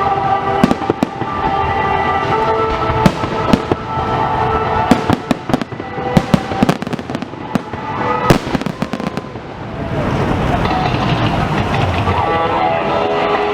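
Fireworks display: a rapid, irregular series of sharp bangs and crackling bursts over steady background music. The bangs stop about ten seconds in as crowd noise rises.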